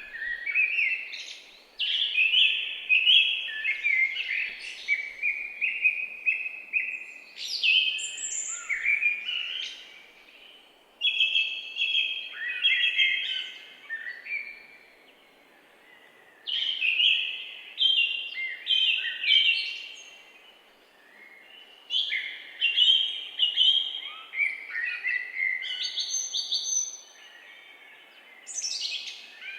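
Songbirds singing, in repeated phrases of a few seconds each with short pauses between them, over a faint steady background hiss.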